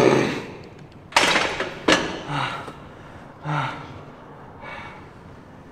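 A man breathing hard and straining through a set of machine preacher curls: forceful exhaled breaths and short grunts, with a loud gasp about a second in and a single sharp knock just before two seconds, then weaker breaths about a second apart.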